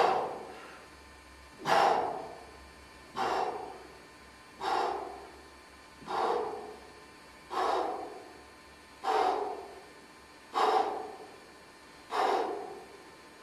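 A man breathing hard in time with T-bar row repetitions: a forceful breath out with each pull, about every one and a half seconds, eight times.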